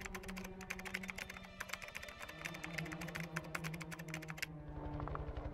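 Keyboard typing sound effect: a fast, uneven run of key clicks that stops about four and a half seconds in, over steady low background tones.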